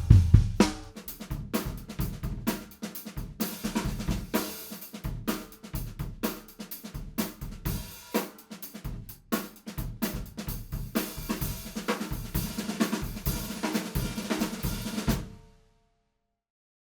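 British Drum Co. Raven snare drum, a 10-ply 6 mm birch shell, played in a drum-kit groove with bass drum, hi-hat and cymbals. The playing stops about fifteen seconds in, and the ring fades out within a second.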